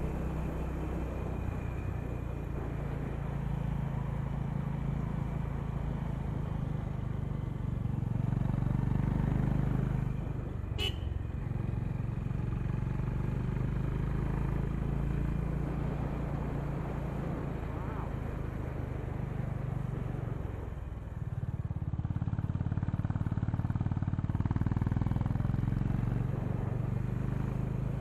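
Honda H'ness CB350's air-cooled single-cylinder engine and exhaust running under way. The engine eases off briefly twice, about ten seconds in and about twenty-one seconds in, then picks up again. There is a short sharp click about eleven seconds in.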